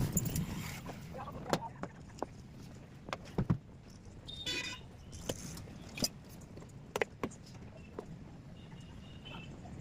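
Scattered light clicks and knocks of an angle grinder's parts and hand tools being handled, with no motor running. A brief squeak about four and a half seconds in.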